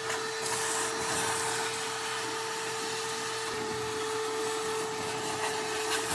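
Vacuum cleaner running steadily with a constant whine, its hose nozzle sucking up dust and debris along the cut edge of foam scenery.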